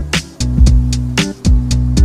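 Background music with a steady drum beat and sustained bass and guitar notes.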